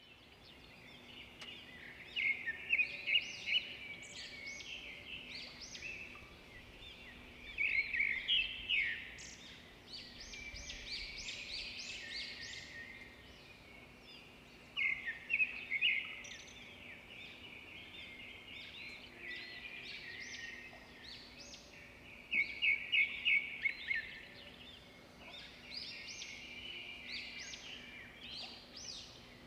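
Small birds chirping and twittering in bursts of quick, high notes, with quieter calls in between and a faint steady hum underneath.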